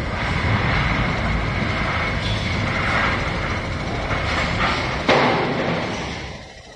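Richpeace automatic sewing machine running, a dense, rapid mechanical stitching clatter, with one sharp knock about five seconds in before it dies down near the end.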